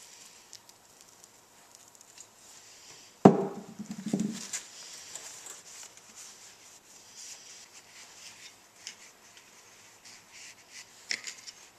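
Light scattered clicks and scraping from hand work on engine parts, with one sudden louder knock about three seconds in that rings briefly.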